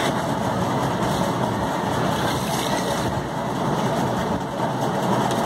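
Steady background noise with no distinct events: an even, unbroken mechanical-sounding rumble.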